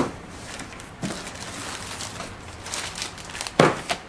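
Rustling and clatter of cardboard and packing as a boxed plasma cutter is unpacked, with a knock right at the start and a louder thump about three and a half seconds in.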